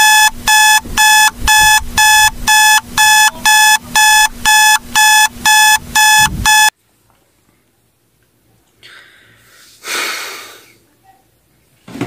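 Electronic alarm beeping in an even pulse of high beeps, about two a second, then cutting off suddenly about six and a half seconds in: a wake-up alarm going off beside the bed.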